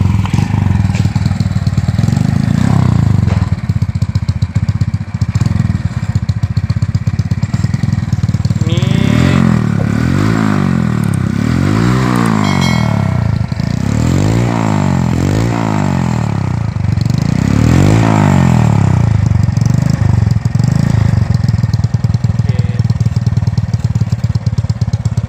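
Honda Astrea Prima Grand motorcycle's modified single-cylinder four-stroke engine running through an aftermarket racing exhaust: it idles, is revved up and down in a run of quick blips through the middle, then settles back to idle.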